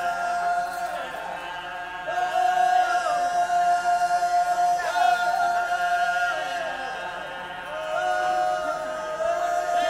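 Wodaabe Fulani geerewol dance song: a chorus of men singing unaccompanied in high, held notes, several voices overlapping on slightly different lines, with short sliding turns between notes.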